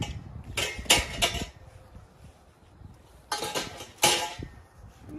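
Metal frame poles and support arms from an above-ground frame pool clattering and clinking as they are dropped onto a pile, in two bursts.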